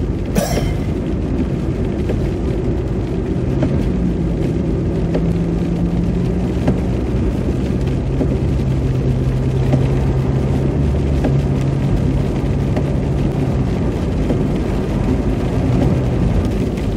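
Road noise inside a moving car's cabin: the tyres running on a wet, slushy road with a steady low rumble and a low hum. A brief swish about half a second in.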